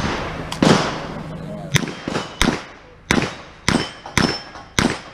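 A revolver fired in rapid succession, about eight shots roughly half a second apart, each a sharp crack with a short echo.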